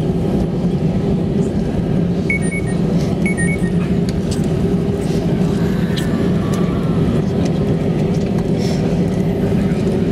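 Steady cabin rumble of an easyJet Airbus A320-family airliner rolling along the runway just after landing, ground spoilers still raised, with a low hum from the engines. Two faint short beeps come about a second apart, a couple of seconds in.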